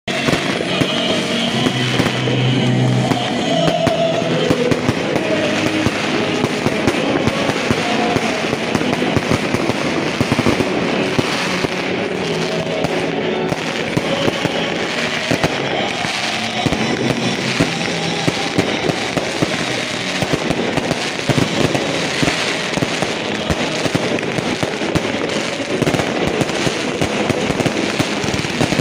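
Fireworks and firecrackers crackling and popping in a dense, unbroken stream, with music underneath.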